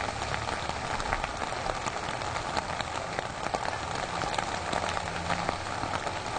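A steady wash of outdoor noise dotted with many small, irregular clicks and crackles.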